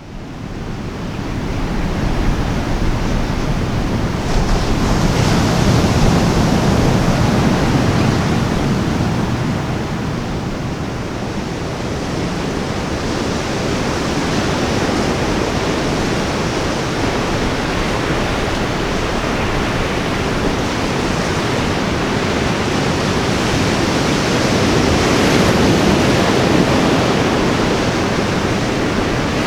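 Ocean waves breaking and washing on a beach, a continuous surf with slow swells, mixed with wind on the microphone; fades in at the start.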